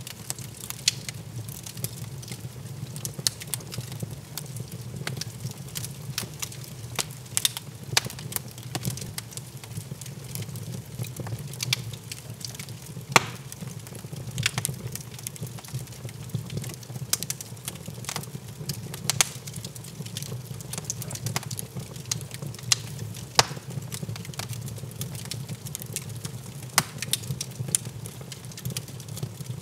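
Wood fire burning in a stone fireplace, crackling with frequent sharp pops and snaps at irregular intervals over a steady low rumble.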